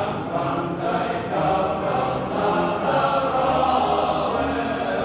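Welsh male voice choir singing in several-part harmony, holding long sustained notes.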